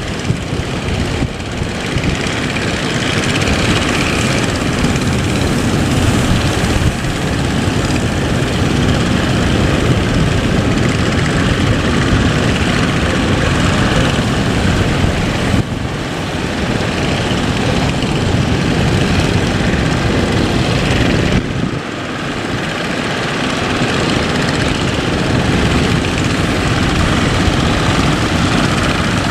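Boat engine running steadily under way, with a dense rushing noise over it; the sound dips briefly three times, about a second in, midway and about two-thirds through.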